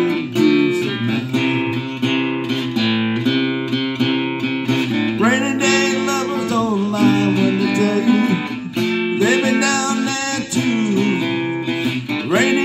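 Acoustic guitar strummed in a slow country-folk accompaniment, with a man's singing voice coming in at times.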